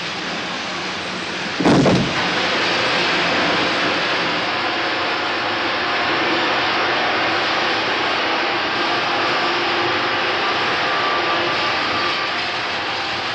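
Paris Métro train running at speed through a tunnel: a loud, steady rushing noise, with a sudden heavy bang about two seconds in, after which it runs louder. Faint motor whine shows through later on.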